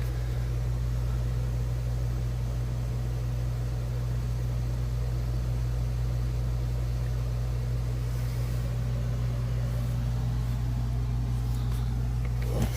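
Steady low machine hum with no change in pitch or level, and a few faint clicks near the end.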